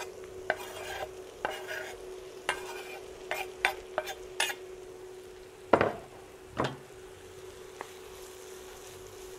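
Chopped leek scraped off a wooden chopping board with a knife into a frying pan of sautéing onion and green pepper: a run of short scrapes and taps, then two louder knocks a little past halfway as the board is put down. After that, stirring in the pan over a light sizzle, with a steady hum underneath.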